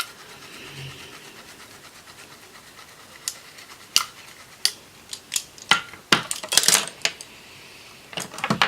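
Makeup palette and brushes being handled: scattered light clicks and clatters of small hard cases and tools knocking together, with a denser run of rattling about six seconds in and another near the end.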